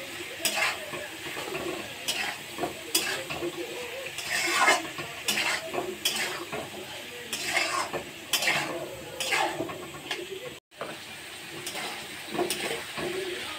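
Metal spatula scraping and tossing soya chunks, potato and papaya pieces around a kadai, with repeated strokes roughly one a second over a steady sizzle of frying oil. The sound drops out for an instant about three-quarters of the way through.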